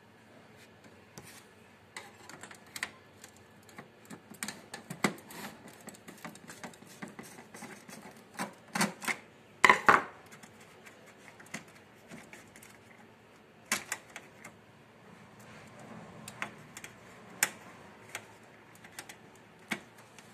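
Irregular plastic clicks, snaps and knocks as an HP LaserJet printer's casing is pried and unclipped by hand, with a burst of louder knocks a little before the middle.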